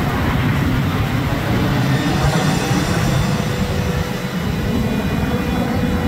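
Jet engine roar from a four-ship formation of F-16 Fighting Falcons passing overhead: a steady, deep rumble.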